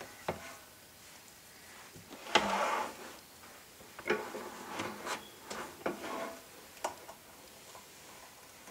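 Plastic cutting plates and a cutting mat being laid and shifted on the platform of a Sizzix Big Shot Pro manual die-cutting machine: a few sharp clacks, the loudest about two and a half seconds in, with short scraping and rubbing between them.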